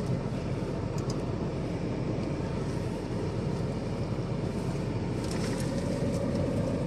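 Maserati engine idling steadily, heard from inside the cabin. A faint steady hum joins about five seconds in.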